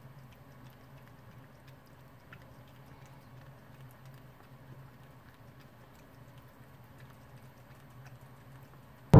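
Cat eating from a bowl: faint, irregular small clicks of chewing and licking over a low steady hum.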